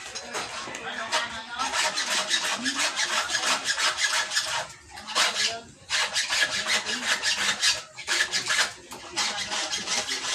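Rapid, repeated rasping strokes made by hand, broken by a few brief pauses.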